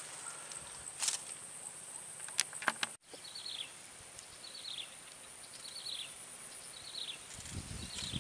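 Swamp ambience: a steady high-pitched insect drone throughout, with a few faint clicks in the first seconds. After a brief dropout about three seconds in, a short falling chirp repeats roughly once a second, and a low rumble comes in near the end.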